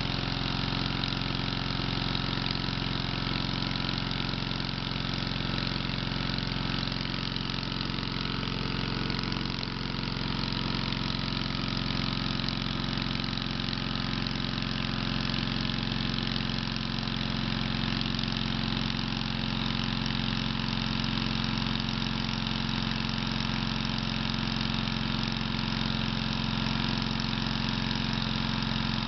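Small gasoline engine on a floating hookah dive compressor running steadily at a constant speed, driving the air compressor that feeds the divers' hoses.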